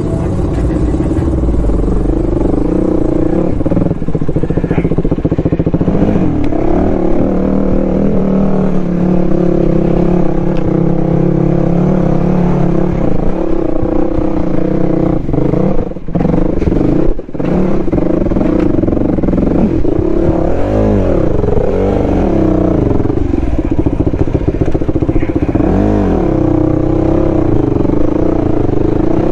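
Dual-sport motorcycle engine running with the throttle changing, its pitch rising and falling as it revs up and down, with two short dips in engine sound a little past halfway.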